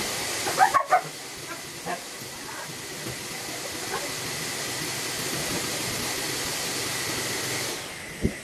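Dog barking a few times, loudly, about a second in, with fainter barks later, over a steady hiss of grooming equipment that cuts off near the end.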